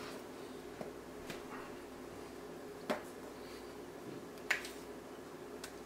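A spatula scooping chocolate frosting from a bowl onto a sheet cake, giving a few light, sharp clicks and taps, the loudest about three seconds in and again near the end, over a faint steady hum.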